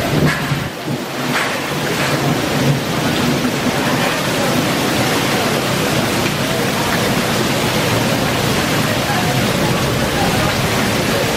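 Heavy rain pouring down in a steady, dense hiss. Water streams off a roof edge and splashes onto a tiled patio.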